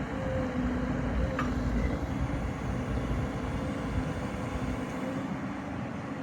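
Diesel engine of a Hyundai HX210AL tracked excavator running steadily, a low rumble with an even hum, plus a brief click about a second and a half in.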